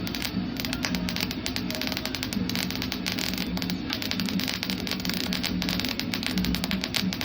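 Electric arc welding: a steady, dense crackling from the arc, over a low buzz.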